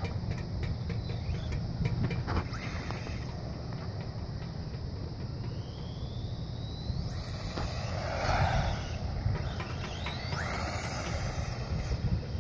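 Faint whine of an RC truck's Himax brushless motor rising in pitch as it accelerates, about halfway through and again near the end, over a steady low rumble.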